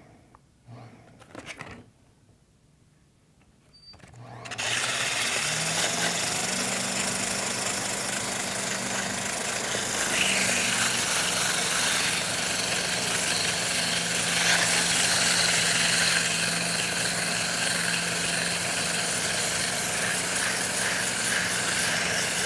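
About four seconds in, the electric motor of a rod-building lathe starts and spins up to a steady hum, turning a cork ring handle. Sandpaper held against the spinning cork rings gives a loud, continuous sanding hiss as it shapes the grip.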